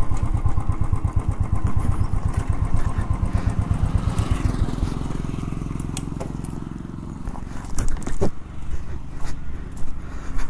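Motorcycle engine running as the bike slows and pulls up, settling to a quieter, steady idle about halfway through. A few sharp clicks and knocks follow near the end.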